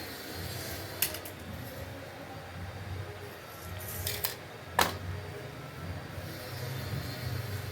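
A few sharp knocks or clicks, one about a second in and a cluster around four to five seconds in, over a low steady hum.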